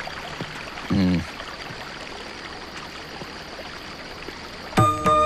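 Steady rush of running water, like a forest stream, with one short pitched call about a second in. Plucked-string music starts just before the end.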